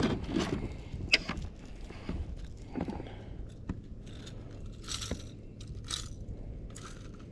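Scattered light metallic clicks, rattles and scrapes: pliers working treble hooks out of a deeply hooked fish.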